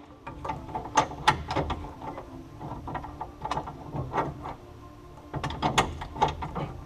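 Jeep Cherokee steering column and its mounting hardware being handled and test-fitted under a Jeep Wrangler YJ dashboard: irregular metallic clicks, knocks and rattles, with a busier cluster near the end.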